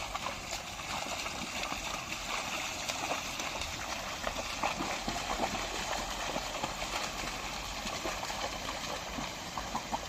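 A pair of bullocks and a plough wading through a flooded, muddy field: steady, irregular splashing and squelching of hooves and the plough in water and mud.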